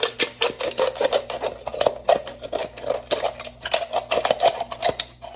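Scissors cutting through a thin aluminum drink can: a quick, uneven run of snips with the crinkle of the metal.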